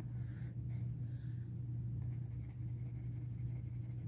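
Derwent Graphitint pencil, a tinted watersoluble graphite pencil, scratching on paper as a swatch is shaded in: a few short strokes, then quick repeated strokes from about halfway through, over a steady low hum.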